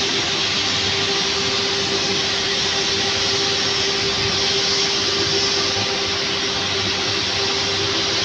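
Steady, loud mechanical roar of thermal power plant machinery, an even hissing rush with a constant low hum running under it.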